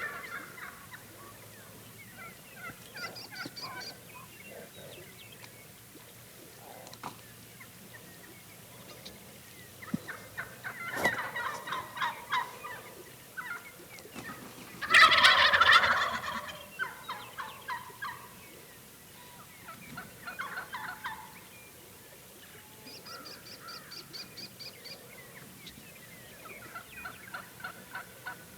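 Merriam's wild turkey gobblers gobbling again and again, the loudest gobble about halfway through.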